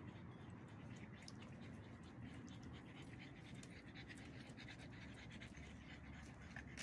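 A pug panting faintly in quick, short breaths.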